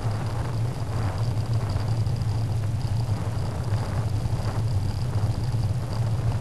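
Bicycle riding along a compacted gravel path, heard through a bike-mounted camera's microphone: a steady low rumble of wind and tyre noise with swells of hiss about once a second, over a faint steady high whine.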